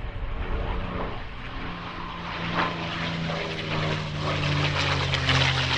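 Rolls-Royce Merlin V12 engine of a Second World War fighter flying overhead at full song, a steady propeller-driven engine note whose pitch sinks slightly over the last couple of seconds as it passes.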